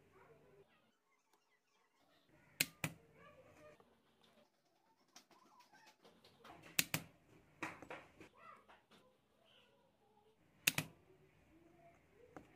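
Homemade battery spot welder firing through copper electrode pens onto nickel strip: a handful of sharp snaps a few seconds apart, with a quick pair near the middle, and faint handling noise between them.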